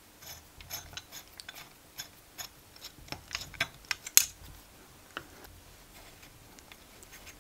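Hex key turning small screws into an aluminium stand plate on a model engine block: a run of light metallic clicks and ticks, loudest about four seconds in, then dying down to a few faint ticks.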